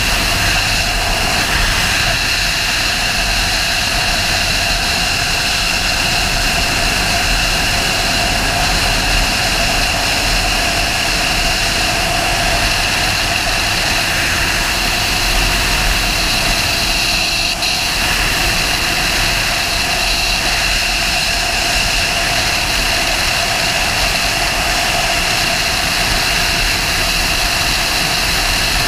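Sportbike engine running at a steady cruise, mixed with loud, unbroken wind rush over the camera's microphone.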